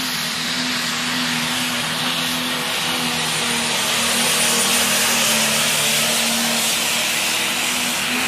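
Diesel pulling tractor at full power, dragging a weight sled down the pull track: a loud, steady engine note that holds its pitch throughout.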